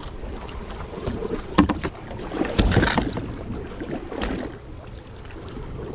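A few sharp knocks and clatters on a small fishing boat over wind noise on the microphone, as a netted tiger squid is handled and dispatched.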